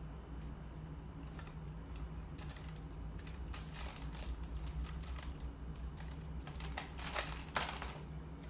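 Snack packaging crinkling and rustling in short, irregular bursts as a cat noses into the plastic bags and cookie box, starting about a second in and growing busier.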